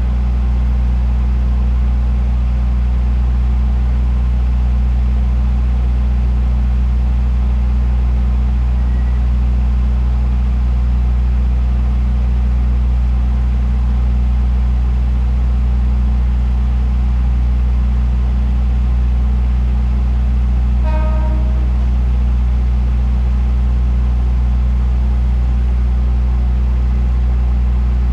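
Diesel railcar engine idling with a steady low drone. About two-thirds of the way through, a brief, short toot of a horn sounds once.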